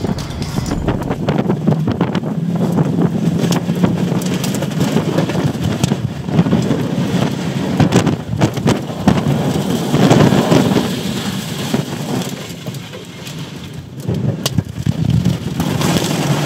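EF3 tornado winds driving rain and debris against a car, heard from inside the cabin: a loud rushing noise full of rapid hits on the glass and body, swelling louder near the end as the car is struck.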